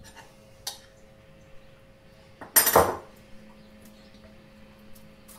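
Spoon and small ceramic bowl clattering while marinade is spooned onto fish: a light click near the start and one loud, short clatter just past halfway. A faint steady hum runs underneath.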